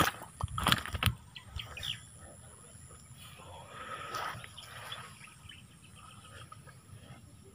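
A snakehead fish swung out of the water lands on a grassy bank, with a few sharp thuds and rustles in the first second, then lighter rustling in the grass as the fish wriggles.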